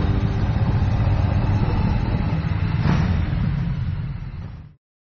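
Motorcycle running under way, the Yamaha XV1900 Midnight Star's large air-cooled V-twin giving a steady low rumble mixed with rushing noise; it fades out about four and a half seconds in.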